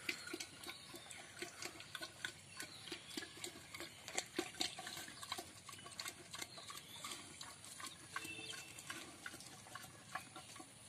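A pig slurping and chewing feed from a metal pot, a faint, irregular run of wet smacks and clicks from its snout in the pot.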